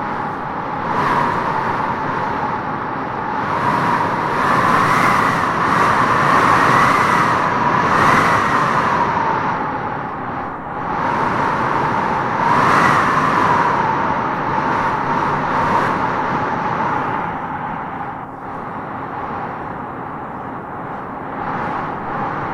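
Howling wind gusting through trees: a steady rush with a whistling moan that rises and falls in pitch, swelling strongest about a third of the way in and again just past the middle.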